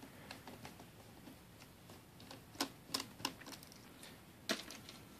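Faint scattered clicks and taps of a small Phillips screwdriver loosening a screw on a Toshiba Satellite A100/A105 laptop, with a few sharper clicks from about halfway through.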